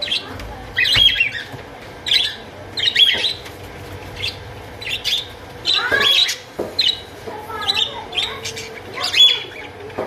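A flock of budgerigars calling in short, sharp chirps and squawks, one every half second to a second, some sliding quickly in pitch.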